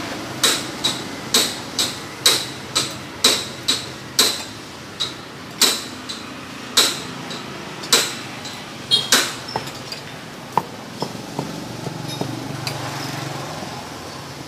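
Cleaver chopping on a wooden chopping board: sharp knocks with a short metallic ring, about two a second at first, then further apart and softer after about nine seconds.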